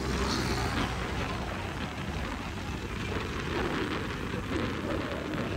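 Motorcycle engine running steadily while riding along, mixed with a rushing wind and road noise on the microphone.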